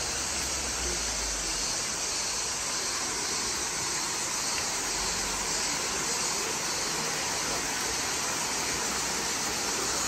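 Turgut Waterfall's water rushing in a steady, even roar of noise, unchanging throughout.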